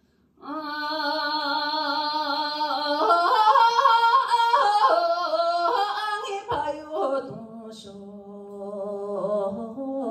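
A woman singing a Tibetan Kham folk song through a microphone. She begins about half a second in on a long, wavering 'wo' that climbs higher about three seconds in, then drops to a lower, quieter phrase after the middle.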